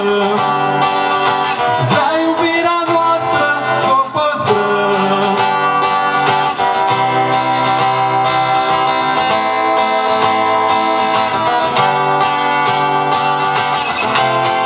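Amplified acoustic guitar strummed in a steady rhythm as a live song winds toward its end, with a voice singing over it in the first few seconds.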